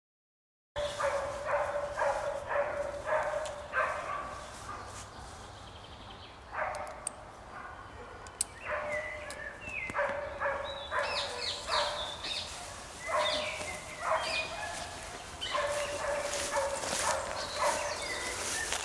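A dog yelping and whining in short, high-pitched calls, over and over in quick runs. The calls start about a second in, as the dog is harnessed and set off on a scent track on a long line.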